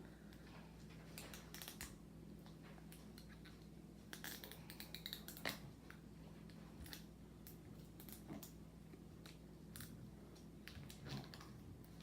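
Faint, scattered crinkling, rustling and clicking of a LOL Surprise ball's wrapping layers being handled and peeled open by hand, with a short cluster of crinkles about four to five and a half seconds in.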